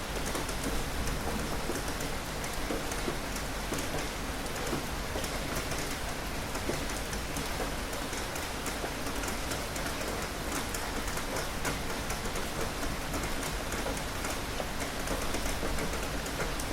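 Steady rain falling and pattering on a surface, with many fine drop ticks over an even hiss.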